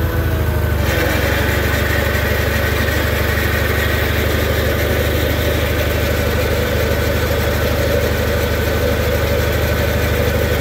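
Case Ingersoll 226 garden tractor engine running steadily with the front snowblower's jack shaft, belt and chain drive turning the auger; about a second in, a higher whirring and rushing from the blower drive comes in and holds steady. The auger bearings are a little loud but not horrible.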